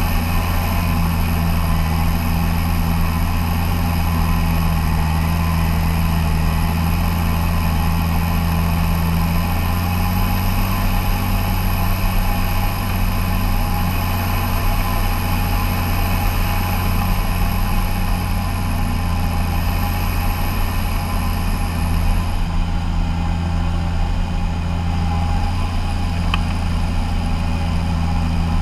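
Fendt 714 tractor's six-cylinder diesel engine running steadily under load while pulling a land leveler across a field. A faint high whine stops about three quarters of the way through.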